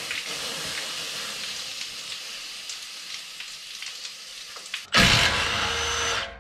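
Water squirted onto a torch-heated, rusted exhaust-bracket bolt hisses and sizzles into steam: the heat-and-quench method for breaking the rust free. About five seconds in, the hiss gives way to a cordless impact wrench running on the bolt for about a second and a half, the loudest sound.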